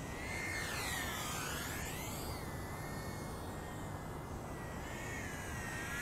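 Brushless micro quadcopter's motors whining, the pitch dipping and rising as it throttles and passes close by, over a steady rushing noise.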